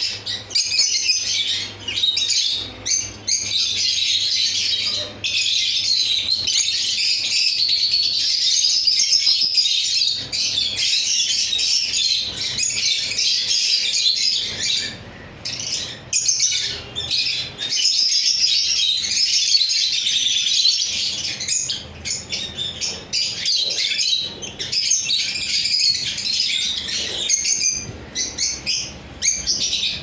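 Caged lovebirds chattering: a dense, continuous stream of high-pitched chirps, with a few brief lulls about halfway through.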